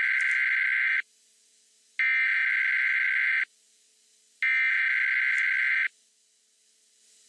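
Emergency Alert System SAME header: three bursts of shrill digital data tones, each about a second and a half long with a second of silence between them, signalling the start of an emergency alert broadcast.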